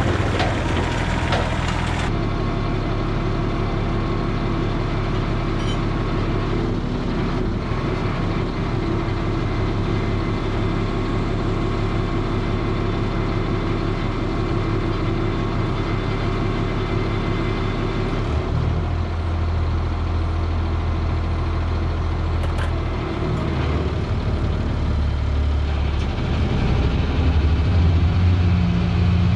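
A vehicle engine running steadily. Its sound shifts about two seconds in, a deeper, stronger drone comes in about two-thirds of the way through, and it gets slightly louder near the end.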